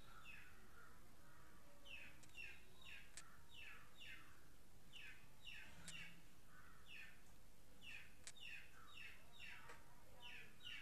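Faint bird chirping: a run of short calls that fall in pitch, about two a second with brief pauses, with a few sharp ticks among them.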